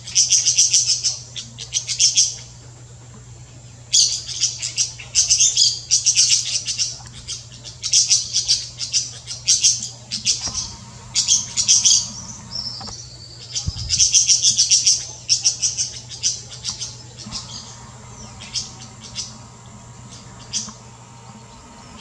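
A flock of golden-winged parakeets (Brotogeris chrysoptera) chattering: bouts of rapid, high-pitched chirping calls about a second long, with short pauses between them, thinning out over the last few seconds.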